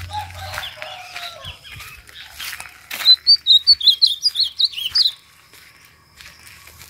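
Caged male ultramarine grosbeak (azulão) singing a loud, quick burst of clear high notes about three seconds in, lasting about two seconds. Softer, lower whistled notes come in the first second and a half.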